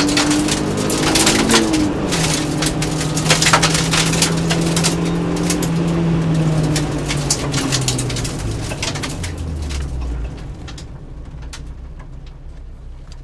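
Naturally aspirated 1600 cc rally car heard from inside the cabin, engine running under load with gravel stones pinging and rattling against the underbody. The engine note drops in pitch as the car slows for the stage end, and after about ten seconds the stone noise stops and only a quieter engine is left.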